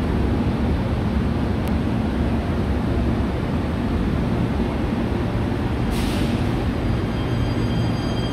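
Third-generation Athens Metro electric train at the platform with a steady low rumble, a short hiss of air about six seconds in as the brakes release, then the high whine of the traction motors setting in as it starts to pull away.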